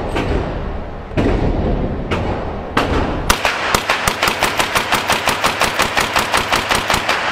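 Tavor-style bullpup rifle firing in an indoor range: four single shots about a second apart, then a fast string of about seven shots a second over the last four seconds, emptying the magazine.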